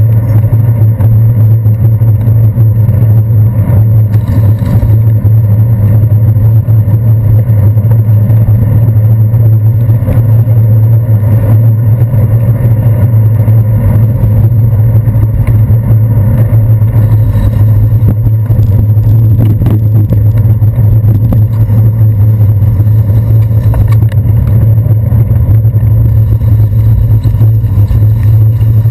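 Loud, steady low hum and rumble of road travel and surrounding motor traffic, picked up by a camera mounted on a bicycle's handlebars while riding on a wet city street.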